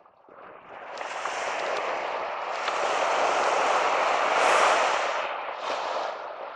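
Small waves breaking and washing up a sandy beach: a hiss of surf that swells to its loudest about four seconds in, then falls away, with a smaller surge near the end.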